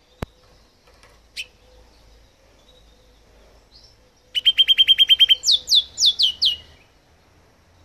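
Male house finch singing: a short single note about a second in, then a fast run of about ten identical notes followed by five downward-sliding notes. A sharp click comes just at the start.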